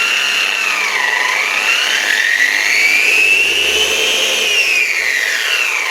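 Flex XFE 7-15 dual-action car polisher running with a high whine that dips about a second in, climbs, then falls again near the end as the speed changes. The repairer thinks the bearing doesn't sound great; the backing plate isn't spinning as freely as it should.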